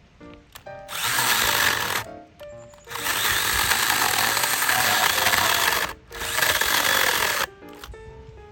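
Three loud bursts of a steady, rushing machine-like noise over quiet background music: about one second long, then about three seconds, then about a second and a half.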